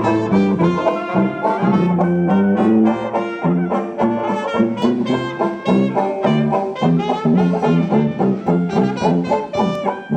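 Live brass band music: trombones and trumpets playing a lively jazz-style tune with many short, changing notes.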